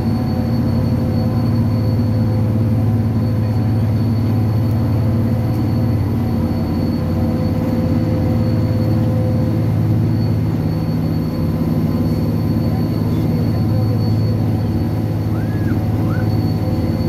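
Diesel cog railway railcar running steadily uphill, heard from inside the passenger cabin: a constant low drone of engine and drive with a steady hum.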